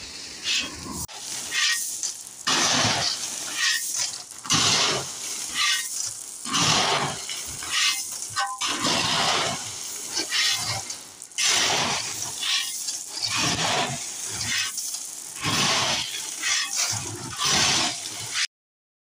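Shovels scraping into a load of crushed-stone gravel in a truck bed and pulling it off. The gravel slides and rattles in repeated rushes, roughly one stroke a second.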